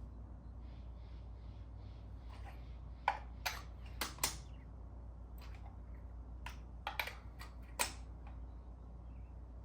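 Sharp metallic clicks and clacks from a hand ratchet and socket tightening spark plugs by hand, about eight irregular clicks in the middle of the stretch, over a steady low background hum.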